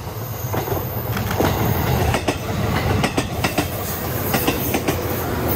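A JR 211 series electric train passing close by: a steady rumble that builds over the first couple of seconds, with wheels clacking irregularly over the rail joints.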